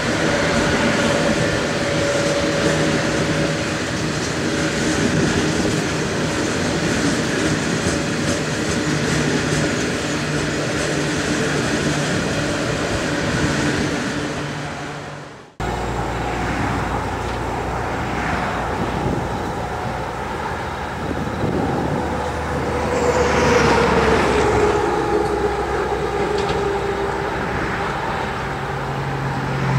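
Multiple diesel-electric locomotives hauling a loaded coal train up a grade, their engines running steadily under load. The sound breaks off abruptly about halfway through, then a second train's locomotives come in, with an engine tone that slowly falls in pitch as they approach.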